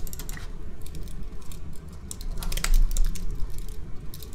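Typing on a computer keyboard: a run of quick key clicks, loudest about two and a half to three seconds in, over a low steady hum.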